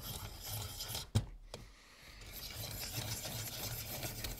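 Caran d'Ache Pencil Sharpening Machine being hand-cranked, its cutter shaving the wood of a large pencil with a continuous rasping scrape. There is a sharp click about a second in and a brief lull before the shaving resumes.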